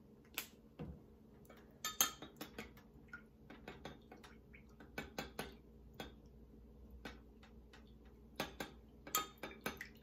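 Metal spoon clinking irregularly against a glass measuring cup while stirring paint into water.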